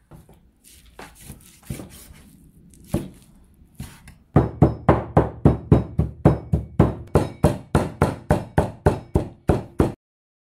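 Cleaver chopping raw beef trimmings into mince on a thick wooden chopping board: a few scattered chops, then from about four seconds in a fast, even run of about four chops a second.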